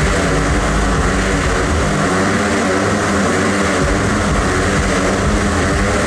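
Motorcycle engines running steadily inside a steel mesh globe of death as the riders circle inside it: a continuous engine drone.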